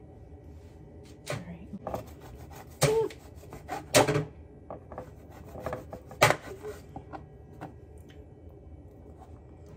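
Kitchen knife slicing through a log of shortbread cookie dough and knocking down onto a plastic cutting board, a series of irregular sharp knocks, the loudest about four and six seconds in.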